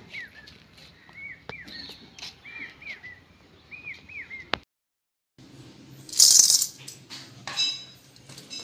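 A bird repeating short chirps, each rising then falling, several times over the first four seconds or so. After a break, dry split moong dal grains rattle loudly in a steel bowl for about half a second, with smaller rattles after.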